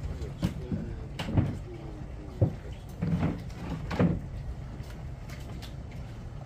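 A handful of irregular knocks and clunks, about five in the first four seconds, over a steady low hum.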